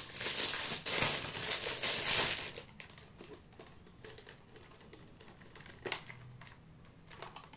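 Hands handling plastic: crinkling and rustling for about two and a half seconds, then quieter, with scattered light clicks.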